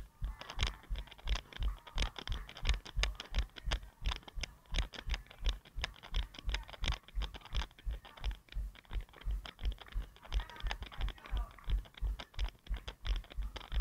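A runner's own footfalls at a steady running cadence, about three thuds a second, picked up as jolts through a head-mounted action camera.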